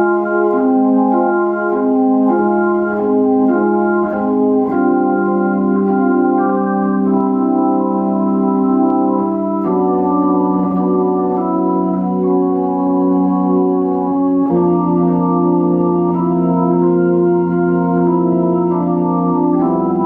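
Restored Hammond C-3 organ played through a Leslie 147 rotary speaker: held chords with a moving upper line, entering suddenly and changing chord about every five seconds.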